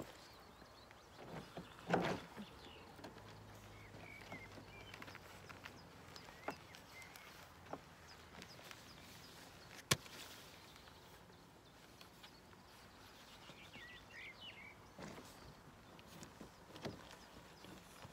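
Quiet outdoor ambience with scattered knocks and clicks from a spinning rod and reel being handled and footsteps on rocks. The loudest is a thump about two seconds in, then a sharp click near the middle. Faint high chirps come twice.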